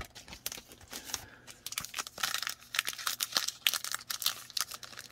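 Trading-card pack wrapper being crinkled and torn open by hand: a rapid, irregular crackle that gets busier about two seconds in.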